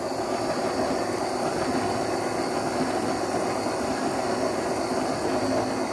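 Electric stand mixer's motor running steadily, its dough hook turning through flour and water to knead bread dough.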